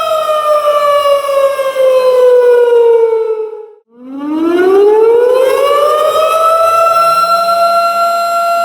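Tornado warning siren sounding a steady wail, then sliding down in pitch and fading almost out about four seconds in before winding back up to its steady tone.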